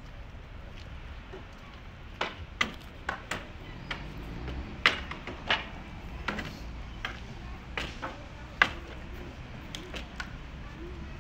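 Irregular sharp knocks of a pry bar and hammer striking a wooden crate as it is pried apart, starting about two seconds in.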